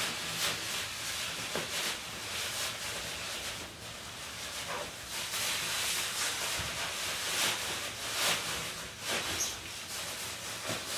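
Plastic bin liner and upholstery fabric rustling and crinkling as a foam boat cushion is handled and worked into its cover, over a steady hiss.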